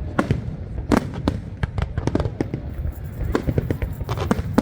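Fireworks display: a rapid, irregular run of bangs, about three a second, over a continuous low rumble.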